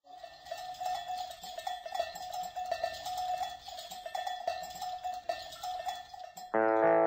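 Many livestock bells (cencerros) clanking irregularly, with a ringing tone under the clanks. About six and a half seconds in, acoustic guitar music starts and the level jumps.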